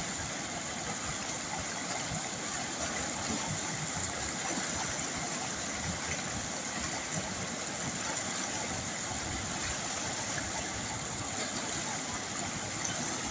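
River water flowing steadily, an even, continuous rush of water.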